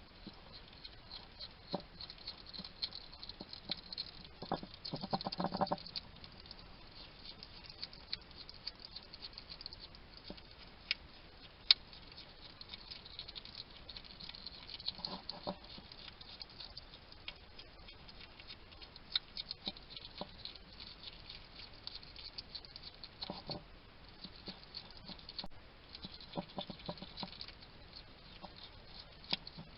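Wild hedgehog eating, with many small crunching clicks of food being chewed, broken a few times by short bouts of low chattering noises from the hedgehog. One sharp click stands out about 12 seconds in.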